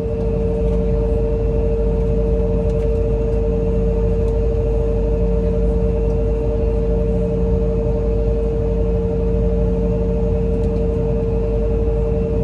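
Steady cabin drone inside an Embraer E175 airliner: two steady whining tones over a low rumble.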